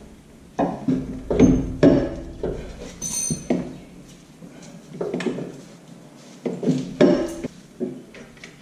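Irregular metal clanks and knocks as a Subaru Forester's front hub and brake disc are lifted and worked onto the splined end of a new CV drive shaft, with a short metallic ring about three seconds in.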